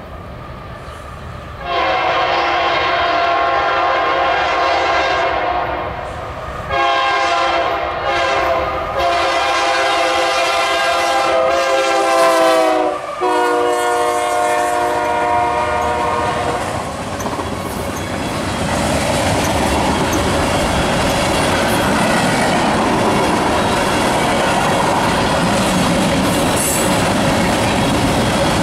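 Freight locomotive's multi-note air horn sounding several long blasts for the grade crossing, its pitch dropping as the locomotive passes. From about halfway on, the freight cars roll by with a steady rumble and wheel clickety-clack over the rail joints.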